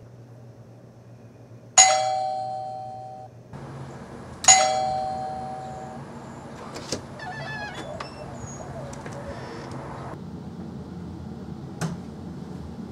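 Doorbell chime sounding twice, a few seconds apart. Each strike is a single ding with two tones that rings out for about a second and a half.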